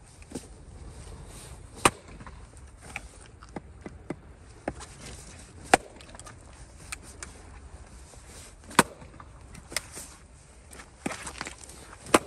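Hatchet chopping into a firewood log. There are several sharp strikes a few seconds apart, with lighter taps between them.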